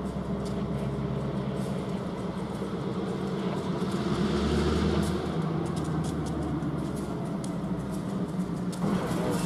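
Union Pacific diesel-electric locomotives' engines running as the locomotives move slowly forward. About four seconds in the engines throttle up with a deeper rumble, puffing exhaust from their stacks.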